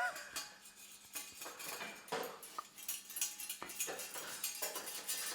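Irregular light metallic clicks, ticks and rustles of a dropper-post cable being tugged through the internal routing of a steel bike frame.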